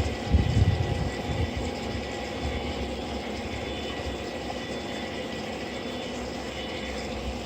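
O scale Lionel model trains running on outdoor three-rail track: a steady rumble of wheels and motors, with a cluster of low thumps in the first second and a half.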